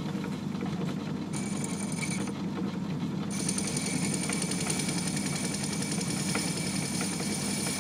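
Myford ML7 metal lathe running with a steady hum while a turning tool takes a light cut across the face of a spinning brass flywheel. A thin, high-pitched cutting whine comes in about a second and a half in, drops out briefly just after two seconds, and returns from about three seconds on.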